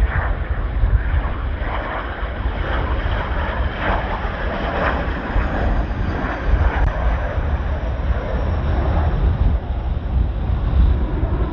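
Strong wind buffeting the microphone: a heavy, uneven low rumble with gusts.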